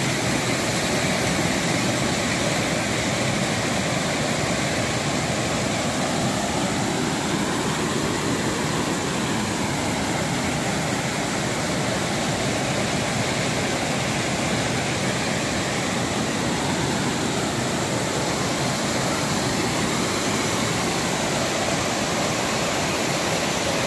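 Waterfall: water pouring and cascading over rock ledges, a steady, unbroken rush.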